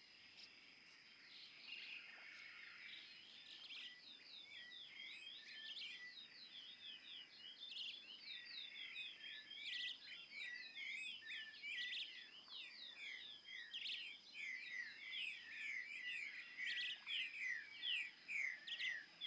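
A dense chorus of small birds chirping and twittering, fading in and growing louder, over a steady thin high-pitched tone.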